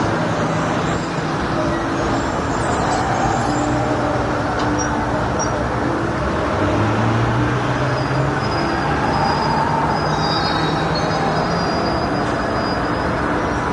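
Busy city street traffic: a steady mix of engines and tyres, with a bus-like engine drone. Brakes squeal in thin high-pitched notes, the longest running from about eight seconds in to about twelve.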